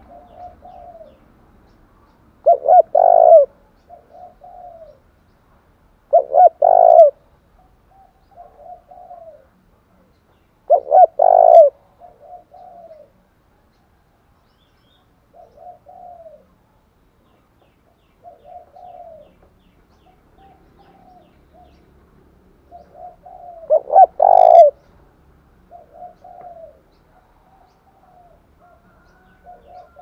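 Spotted dove cooing: four loud coos a few seconds apart, with a longer gap before the last one, and softer coo notes in between.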